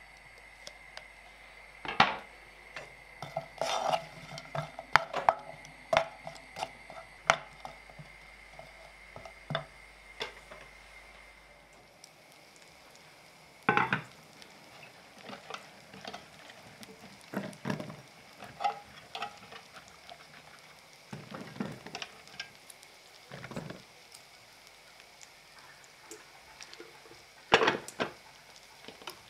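Diced smoked bacon frying in a stone-coated pan while a wooden spatula stirs it: irregular taps and scrapes over a faint sizzle and a steady hum, which stops about twelve seconds in. After that come separate knocks and clatter as mushrooms and a metal colander are handled on a wooden surface.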